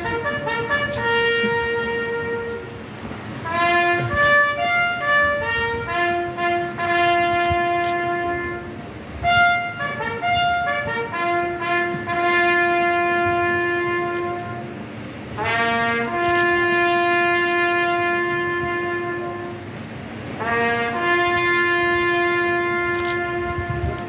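Brass band playing a marching tune: a repeating phrase, about every five seconds, that ends on a long held note, with a few short sharp cracks over it.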